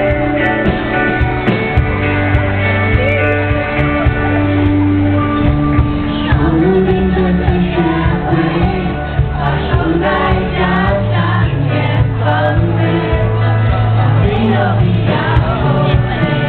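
Live rock band playing on stage: electric guitar, drum kit and keyboard, with the guitarist singing into the microphone from about seven seconds in.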